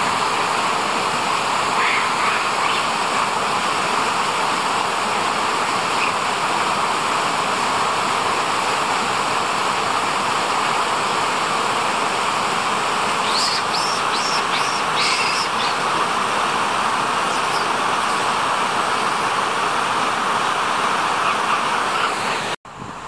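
Mountain stream rushing over boulders and small cascades, a steady loud rush of water. A few short high calls come through about two-thirds of the way in, and the water sound cuts off suddenly just before the end.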